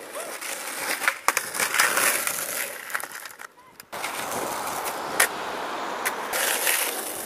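Skateboard wheels rolling on rough pavement, a steady gritty rolling noise broken by several sharp clacks of the board hitting the ground. The rolling noise drops away briefly a little past the middle, then picks up again.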